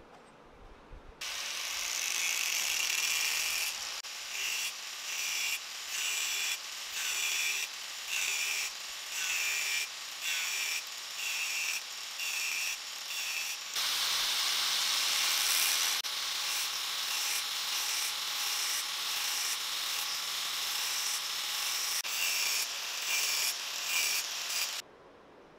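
Angle grinder with a thin cutting disc cutting crosshatch grooves into a steel bar held in a vise: the disc bites in and lifts off in a regular run of short passes, a little more than one a second, then cuts steadily before a few more passes. It starts about a second in and stops suddenly shortly before the end.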